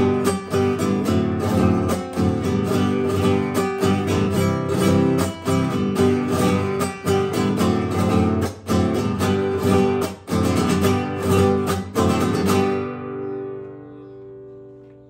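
Vivar Grandmaster 04 nylon-string classical guitar played with quick strummed chords; near the end the strumming stops and a last chord rings out and fades away.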